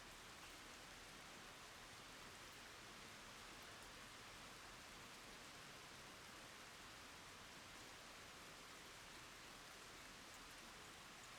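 Faint steady rain falling on wooden boards and puddled ground: an even soft hiss with tiny drop ticks.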